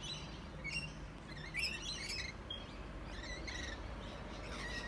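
Birds chirping: several short chirps and trills come in scattered groups over a faint steady background.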